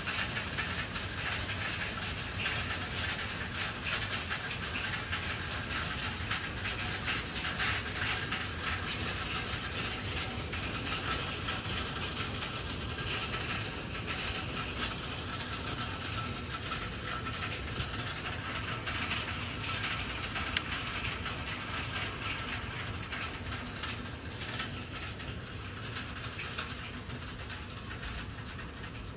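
Hail pelting down in a thunderstorm: a dense, steady clatter of countless small impacts, easing slightly near the end.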